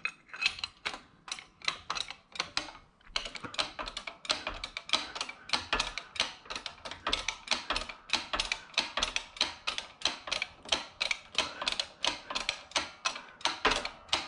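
Hand-pumped 12-ton bottle jack on a shop press clicking rhythmically as it is worked, about four sharp clicks a second with a brief pause about three seconds in, pressing a new needle roller bearing into a transmission countershaft bearing retainer.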